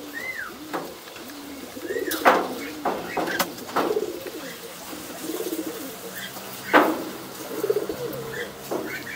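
Domestic pigeons cooing in low, repeated phrases, with a few short higher whistled notes and several sharp knocks, the loudest about two and seven seconds in.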